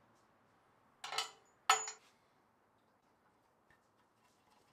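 Small metal parts from a vintage Craftsman scroll saw clattering and clinking: a brief rattle about a second in, then one sharp ringing clink, followed by a few faint ticks.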